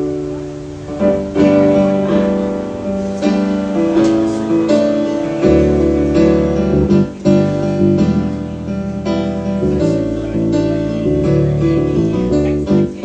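Acoustic guitar strumming chords in an instrumental intro, before the voice comes in.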